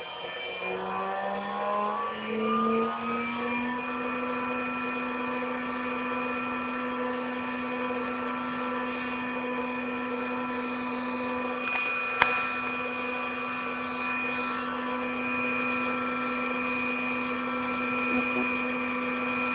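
Spindle motor spinning up, its whine rising in pitch over the first four seconds, then running at a steady speed with an even hum and whine. A single sharp click about twelve seconds in.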